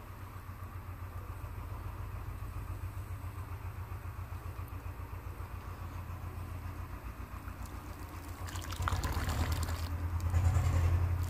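An engine running with a steady, low throbbing hum. Near the end a noisy rush joins it and the hum grows louder.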